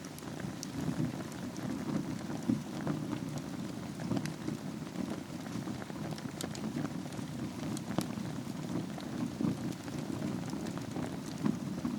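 Wood fire burning in a fireplace over embers: a steady low rush of flames with scattered crackles and pops, the sharpest about eight seconds in.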